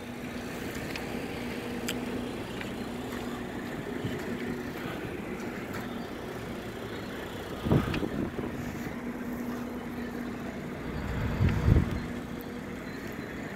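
Steady hum of an idling truck engine, with two dull thumps partway through and near the end, from footsteps or handling on the trailer deck.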